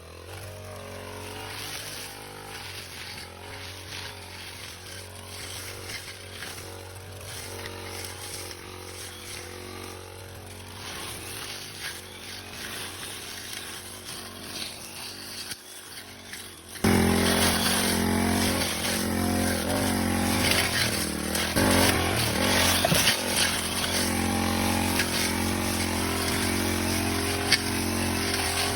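Four-stroke petrol brush cutter engine running steadily, fairly quiet at first, then suddenly much louder about two-thirds of the way in and staying loud.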